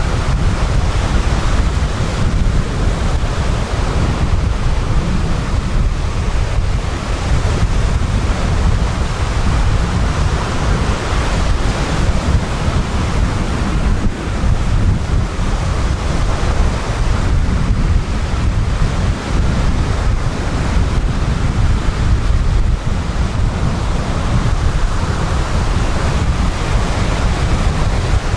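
Sea surf: small waves breaking one after another and washing up a sandy, gritty beach in a continuous loud wash that swells and eases. Wind rumbles on the microphone underneath.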